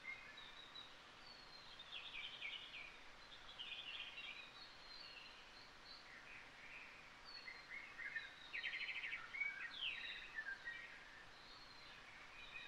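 Faint recorded birdsong from a nature-sounds background track: several birds chirping, with rapid trills about two seconds in and again around eight to nine seconds.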